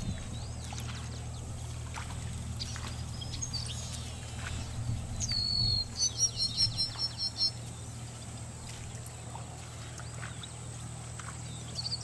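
Wild birds calling. About five seconds in, one bird gives a sharp call and then a quick run of about eight repeated notes lasting about a second and a half, over a steady low hum.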